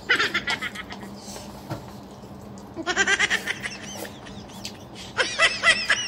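A person slurping instant ramen noodles in three quick bouts, at the start, about 3 s in and about 5 s in, each a rapid run of squeaky, rising-and-falling sucking sounds.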